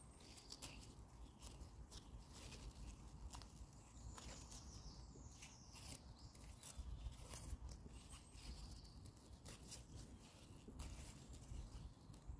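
Faint, irregular snapping and rustling of wild garlic (ramsons) stems being plucked by hand, leaf by leaf, from the forest floor, over a low rumble.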